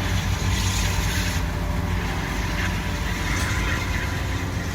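Motor vehicle engine running steadily, a continuous low drone with a hiss of road and wind noise over it.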